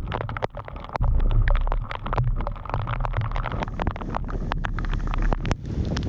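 Heavy rain pelting a bass boat's deck, with many sharp, irregular drop taps over a steady hiss and a low rumble of wind on the microphone. Just before the end it cuts to a steady rush of wind without the taps.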